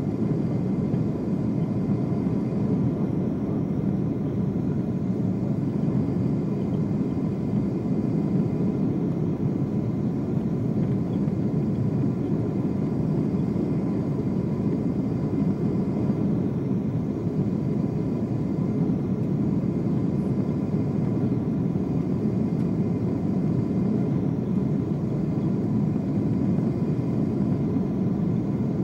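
Steady cabin noise of a Boeing 747-8 airliner on final approach with flaps extended: engine and airflow noise heard from a window seat over the wing, even in level, with a faint high steady tone running through it.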